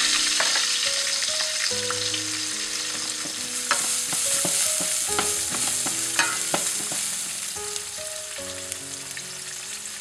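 Julienned ginger and minced garlic sizzling in hot oil in a stainless steel pot, stirred with a wooden spoon that clicks and scrapes against the pot. The sizzle grows a little quieter toward the end.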